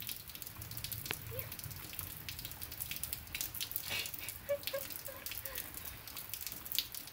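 Rain falling, a steady patter of many small drops ticking.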